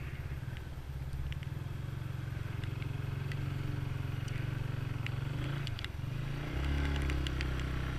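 Motorcycle engine running steadily while riding, its note dipping briefly a little before six seconds in and then running louder.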